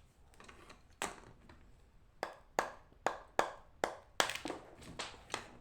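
Dried clay being split into slabs with a knife: a series of sharp cracks, one about a second in, then about eight more in quicker succession from just past two seconds. The clay breaks cleanly, without squeaking.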